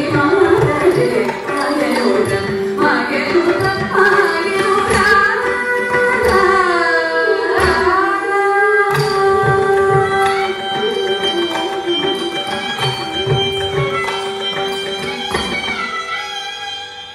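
Carnatic music accompanying Bharatanatyam dance: a sung melody over drum strokes, fading down near the end.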